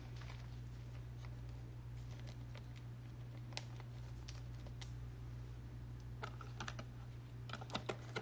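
Scattered light clicks and taps, sparse at first and coming in quicker clusters in the last two seconds, over a steady low electrical hum.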